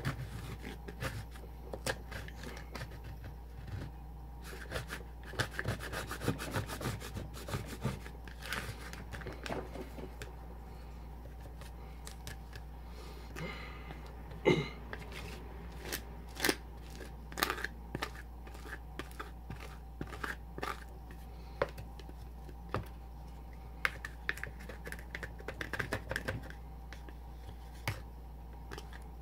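Plastic spatulas scraping and chopping a half-frozen cheese ice-cream mixture on the chilled metal plate of a pan-style ice-cream maker: irregular scrapes with many sharp taps, the loudest knock about halfway through.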